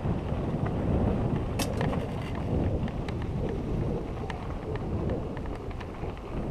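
Wind rumbling over a moving action-camera microphone while riding a mountain bike over gravel, with the tyres crunching and scattered sharp clicks and ticks from gravel and the bike, one louder click about a second and a half in.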